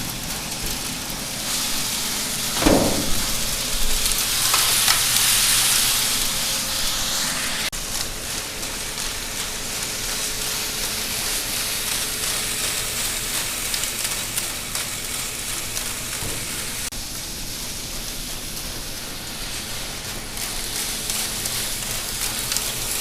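Shelled corn pouring into a grain bin through a running grain spreader: a steady rain-like hiss of kernels, over the hum of the bin's motors. A single thump about three seconds in; the hiss is loudest for a few seconds after it.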